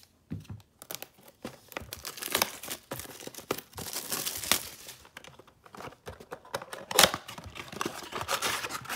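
Clear plastic shrink-wrap being torn and crinkled off a cardboard trading-card box, with one loud sharp snap about seven seconds in.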